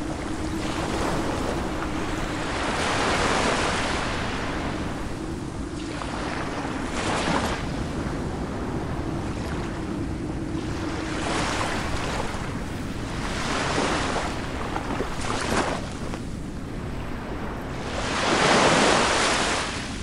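Ocean surf: waves breaking and washing in a continuous rush that swells every few seconds, with the biggest surge near the end.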